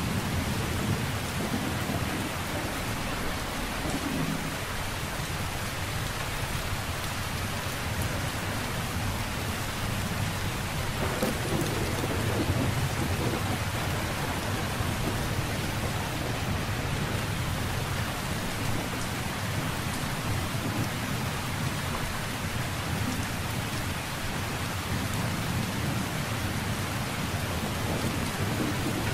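Steady heavy rain with low thunder rumbling under it, swelling slightly around the middle.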